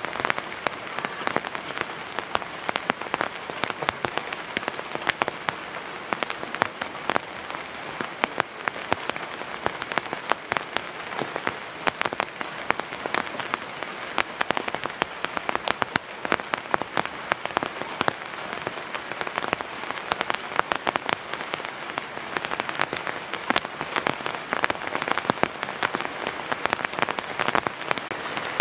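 Heavy rain falling steadily, a dense hiss crowded with sharp individual drop hits.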